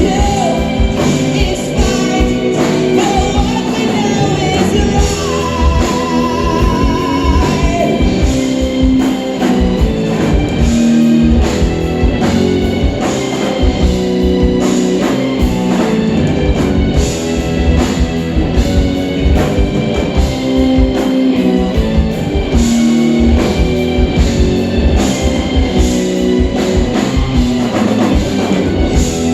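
Live progressive rock band playing, with electric guitar and drum kit; a wavering held lead note stands out about a quarter of the way in.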